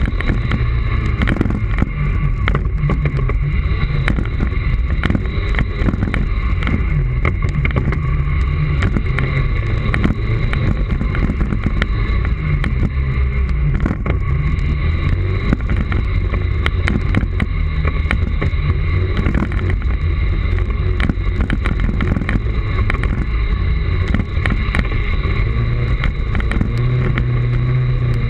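Segway personal transporter riding over a bumpy dirt forest track: a steady electric-drive whine over a low rumble of tyres, with frequent small knocks and rattles from the rough ground.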